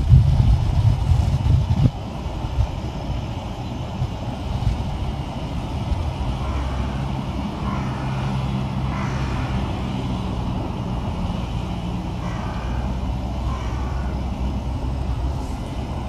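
A steady low engine rumble of motor vehicles, louder and rougher for the first two seconds, then settling to an even hum.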